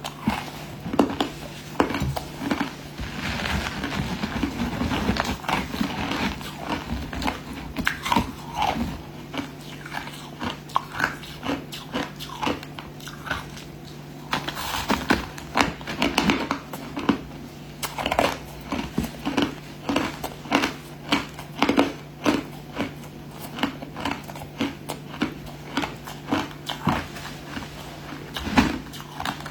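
Crushed ice being bitten and chewed close to the microphone: a long run of sharp, repeated crunches, one every second or so.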